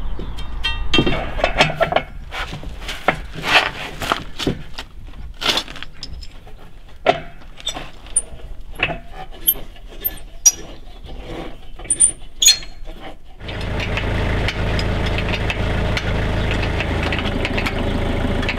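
Irregular knocks and metallic clinks of a steel pry bar and hand tools against a tractor's steel wheel rim and dual-wheel clamps as the dual wheel is fitted. About 13 seconds in they give way to a steady engine idling.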